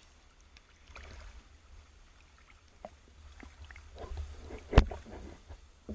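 Underwater clicks and knocks from handling a speargun, over a low rumble of water on the camera housing, with one sharp, loud click about five seconds in.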